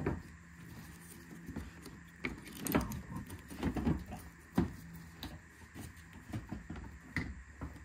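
Scattered plastic knocks, clicks and scrapes as a new headlight assembly is handled and set into its mounting in the car's front end.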